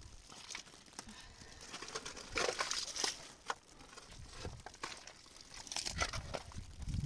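Irregular crinkling and crunching, like material being handled, in uneven bursts that are loudest about two and a half to three seconds in and again near six seconds.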